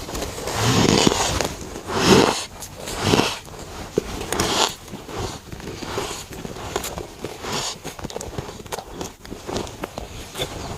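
A person biting and chewing chunks of dry, powdery freezer frost close to the microphone: four loud crunching bites in the first few seconds, then softer crackling chews.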